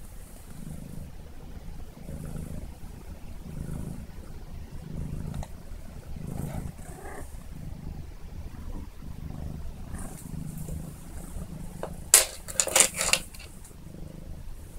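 Kitten purring continuously in a low, even rumble that swells and fades about once a second with its breathing. About twelve seconds in, a brief cluster of sharp clicks and scrapes is louder than the purr.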